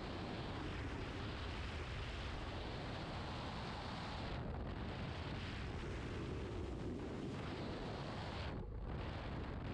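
Steady rush of wind on the microphone of a flexwing microlight in flight, mixed with its engine noise. The hiss dips briefly twice.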